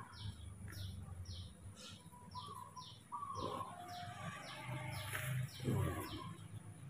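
A bird chirping in a steady, even series of short, high, falling notes, about two or three a second. A few fainter, lower whistle-like notes come in partway through.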